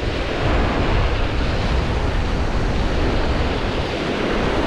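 Great Lakes waves washing steadily onto a rocky beach, with wind rumbling on the microphone.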